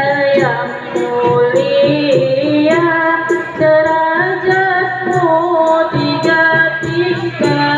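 Music: a singer's long, gliding melody over a steady beat of about one and a half strokes a second.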